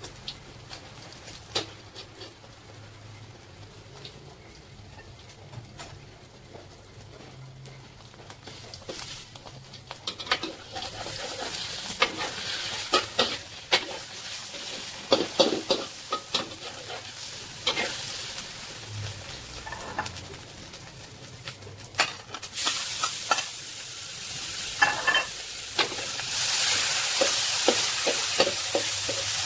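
Egg and tomato stir-fry in a wok: a metal spatula clicks and scrapes against the pan while the food sizzles. The taps come thicker after the first ten seconds, and the sizzle grows louder over the last few seconds as the tomato and egg are stirred together.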